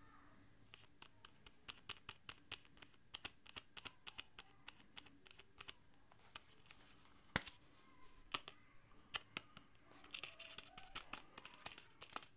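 Faint handling of a leather knife sheath with a metal press-stud snap: a long run of small clicks and scratches from fingers on the leather and the stud. Two sharper clicks come a little past halfway as the snap is worked and the flap comes open.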